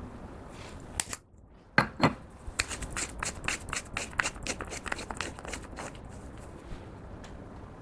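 Clear slime being squeezed and poked by hand, giving a quick run of sticky clicks and pops, a few a second, that stop near the end.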